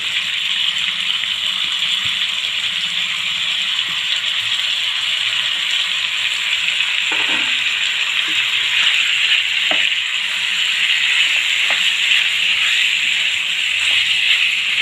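Raw chicken pieces sizzling in hot oil in a pan with fried onions, a steady hiss, with a few knocks of a spatula against the pan.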